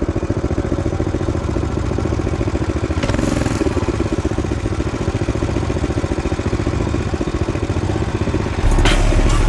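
Small engine idling with a fast, even pulse and a brief louder rise about three seconds in. Music starts near the end.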